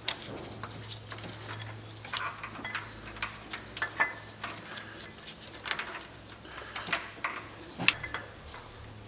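Light metallic clinks and rattles of a Cadillac 368 V8's timing chain being worked off the crankshaft gear and pulled clear, with one sharper clink near the end.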